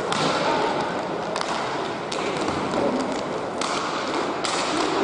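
Hockey game play at the rink: a steady hiss of rink noise with a few sharp taps and knocks from sticks, puck and boards, the clearest about a second and a half, two seconds and three and a half seconds in.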